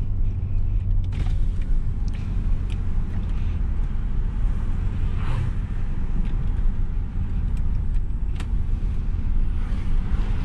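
Inside the cabin of a 2022 Mitsubishi Xpander Ultimate CVT climbing a hill in Ds: a steady low rumble of engine and road noise, with a few faint ticks.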